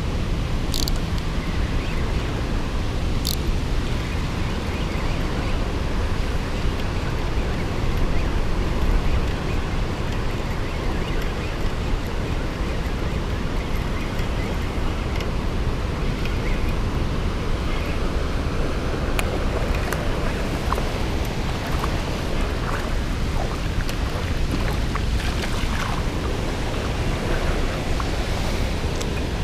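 Loud, steady rush of water pouring over a spillway. A couple of short sharp clicks about a second and three seconds in.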